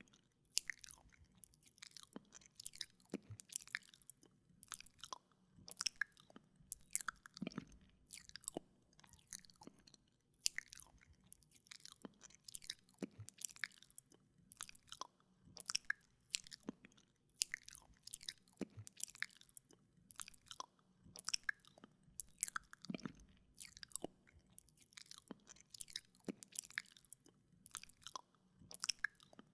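Wet mouth sounds close on a binaural microphone: irregular lip and tongue smacks, wet clicks and licking noises, several a second.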